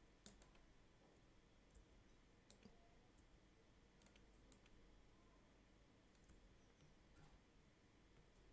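Near silence: faint room tone with a scattered handful of soft clicks from a computer mouse and keyboard.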